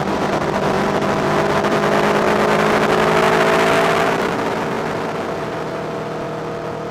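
Aprilia Tuono V4R's 65-degree V4 engine running at a steady cruise, heard under heavy wind and road rush on a low-mounted camera. The sound grows louder to a peak about halfway through, then dies away gradually over the last few seconds.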